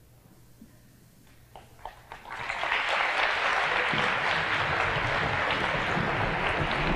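An audience of students clapping, starting suddenly about two seconds in after a quiet pause and holding steady.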